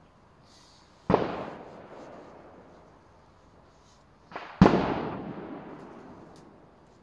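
Two loud, sharp bangs about three and a half seconds apart, each trailing off over a second or two; the second is a little louder and has a small knock just before it.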